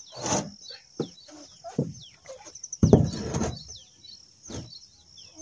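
Clay bricks being set down and knocked into place on a corrugated asbestos-cement roof sheet: a handful of separate knocks, the loudest a longer knock and scrape about three seconds in. Small birds chirp throughout.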